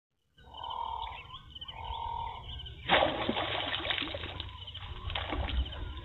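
A sudden splash about halfway through, then continued splashing as a hooked rohu thrashes at the water's surface on the line. Two short steady whistles come before the splash.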